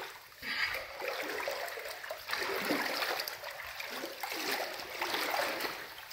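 Legs wading through thigh-deep water, swishing and splashing, with the sound swelling and easing about once a second as each stride pushes through.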